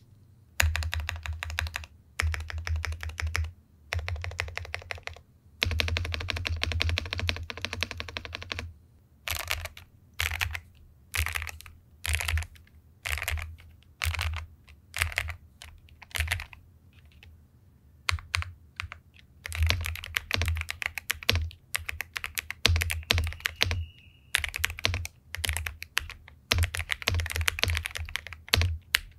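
Sound test of an Epomaker Cypher 81 plastic-bodied mechanical keyboard with pre-lubed Epomaker Wisteria V1 linear switches. Fast bursts of typing give way to single key presses about once a second through the middle, then fast typing resumes.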